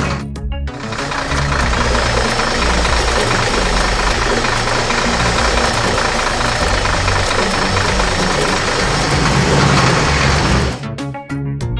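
Cartoon vehicle engine sound effect: a loud, dense mechanical rattle that starts just under a second in and cuts off shortly before the end.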